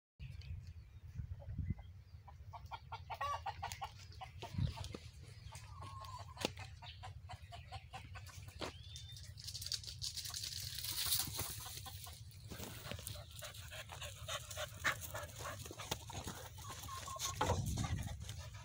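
Chickens clucking off and on, with scattered rustling and knocks.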